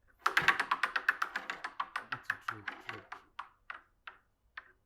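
Spinning prize wheel ticking as its pointer flicks over the pegs: rapid clicks that slow and spread out until the wheel comes to rest near the end.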